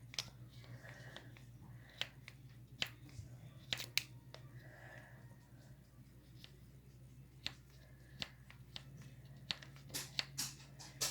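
Butter slime being handled and kneaded as pigment is worked in, giving scattered small sticky clicks and pops over a steady low hum.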